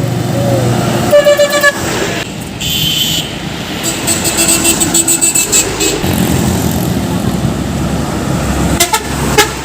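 Telolet basuri musical truck horns sounding several short multi-tone blasts in a row, some warbling or pulsing, over the steady rumble of passing truck engines.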